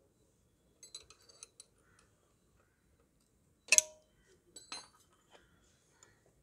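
Steel hand tools clinking on the gear-shift linkage nut of a Bajaj Dominar 400 as it is tightened to take up play in the linkage. A few light metallic clicks come about a second in, then one sharp ringing clink a bit past the middle, followed by a few more clinks.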